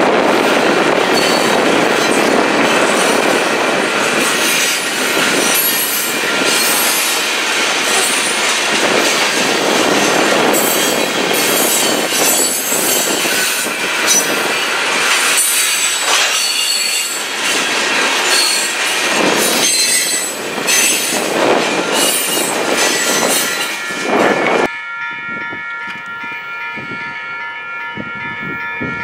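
A Union Pacific rock train's freight cars rumble past over a grade crossing, wheels clattering on the rails. About 25 seconds in, the rumble drops off suddenly and leaves the steady ringing of the crossing bell.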